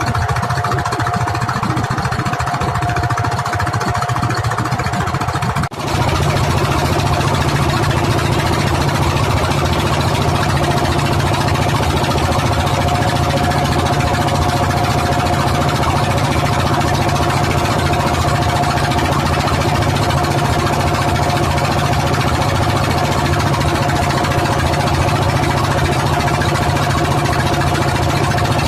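Fishing boat's engine running steadily at an even speed, with a short drop about six seconds in, after which it runs a little louder and fuller.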